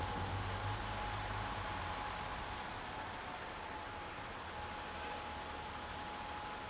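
City street traffic with an articulated bus pulling through the intersection: a low engine hum that fades about a second and a half in, over steady road noise and a thin, steady high whine.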